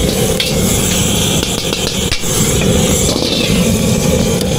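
Loud, steady engine-like rumble with a hiss over it.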